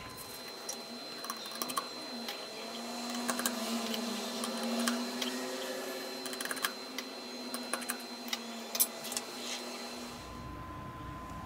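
Small repair tools clicking and tapping on an opened iPhone 6's metal frame and internals, in scattered sharp ticks over a faint wavering hum.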